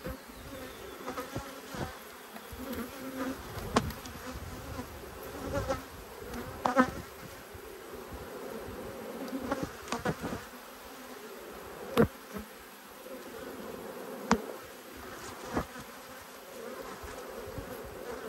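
Honeybee colony humming steadily over an opened hive, with a handful of sharp knocks and scrapes from a metal hive tool prying frames apart.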